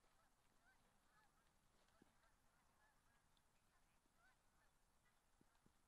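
Near silence: faint outdoor background with a few faint, short, distant honk-like calls.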